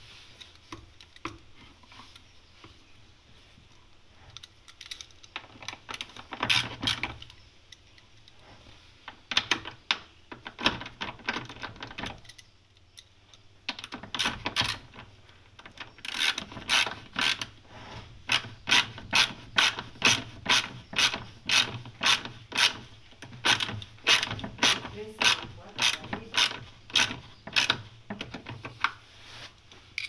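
A screwdriver turning a screw in the plastic underside of a twin-tub washing machine, making sharp mechanical clicks. The clicks come in scattered groups at first, with short pauses, then settle into an even rhythm of about two a second for the second half.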